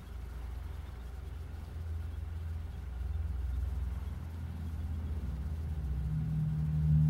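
A low rumble that slowly grows louder, with a steady low drone joining in about six seconds in.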